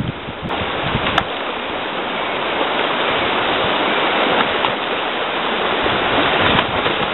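Whitewater rushing around a canoe running river rapids, a loud steady rush that swells over the first couple of seconds. A single sharp click about a second in.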